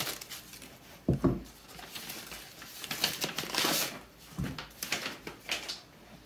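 Scissors snipping through a kraft paper mailer envelope, then paper crinkling and rustling as a cardboard comic mailer is pulled out, with two dull thumps, one about a second in and one just past the middle.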